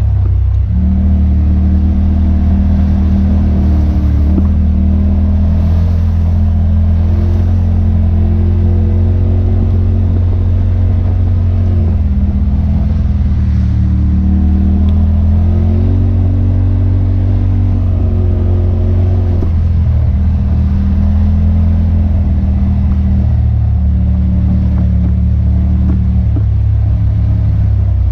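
Side-by-side UTV engine heard from the driver's seat, running steadily under changing throttle, its pitch rising and falling several times as it climbs and eases along.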